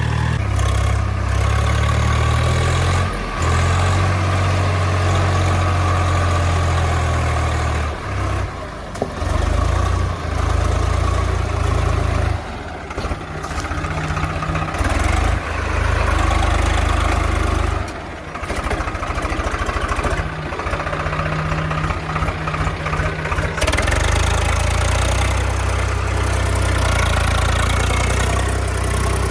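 Diesel engines of heavy construction vehicles, a truck and excavator-loaders, running and idling with a deep steady hum. The sound shifts abruptly several times, around 8, 12, 18 and 24 seconds in.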